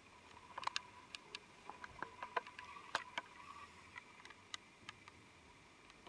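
Faint, irregular clicks and taps, a dozen or so over a few seconds, typical of a hand-held camcorder being handled, over a faint steady hum.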